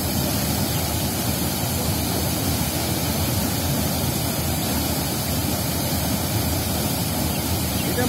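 Muddy floodwater rushing and churning, spilling over a collapsed earth bank: a steady, unbroken rush.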